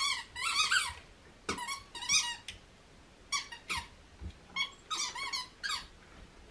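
A miniature schnauzer chewing a squeaky ball toy, giving a string of short, irregular squeaks.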